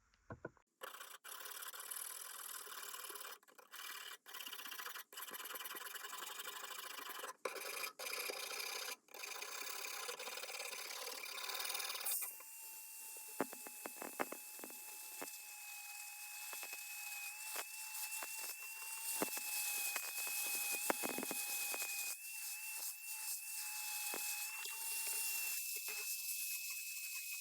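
Abrasive rasping on a steel sickle blade, with several short breaks. About halfway through, a small power tool starts and runs with a steady high whine while it works the blade, ticking irregularly.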